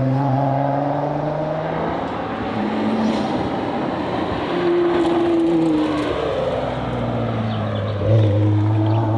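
Nissan R35 GT-R's twin-turbo V6 at racing speed, its pitch falling over the first two seconds, climbing again about four to five seconds in, then falling as it accelerates, lifts and shifts. About eight seconds in the level jumps sharply as it pulls hard again.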